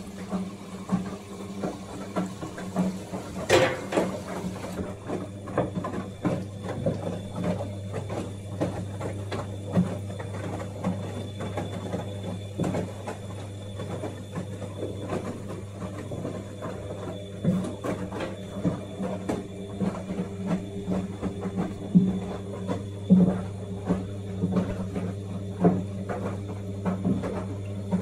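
Siemens WD14H420 washer-dryer running its Intensive Dry programme: a steady low hum with irregular light knocks and rattles over it, and one louder swish about three and a half seconds in.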